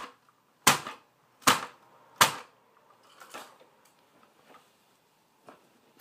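High-heeled shoes striking a hard floor: three sharp clicks about 0.8 s apart, then a few fainter taps.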